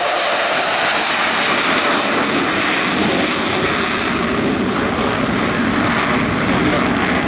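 Blue Angels F/A-18 Super Hornet jet engines: a steady, loud rush of jet noise, whose highest hiss fades about four seconds in.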